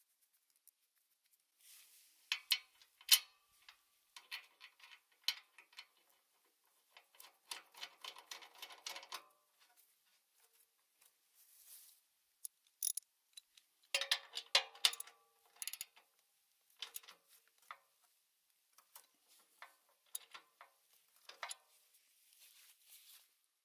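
Ratchet wrench clicking in short runs as a bolt is tightened on the shredder's steel frame, with a few sharper metal clicks and knocks between the runs.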